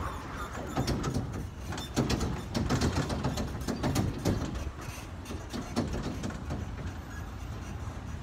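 Rumble of a moving open-sided tourist vehicle with irregular rattling and knocking, louder between about two and four and a half seconds in.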